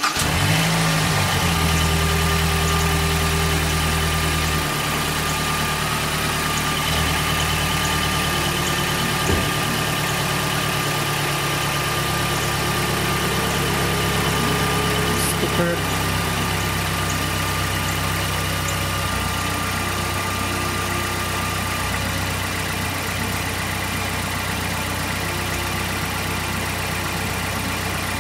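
Mazdaspeed 3's turbocharged 2.3-litre four-cylinder engine idling just after starting. It runs a little higher for the first few seconds, then settles to a steady idle. It is being left to idle so the engine can relearn its idle after the battery was disconnected and a new air filter fitted.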